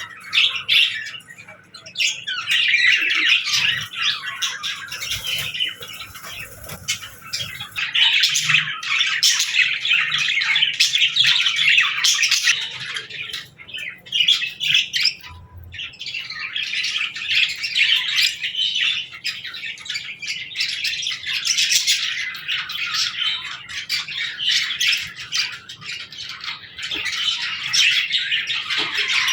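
Many small birds chirping and chattering at once in a dense, continuous chorus, easing off briefly about two seconds in and again around the middle.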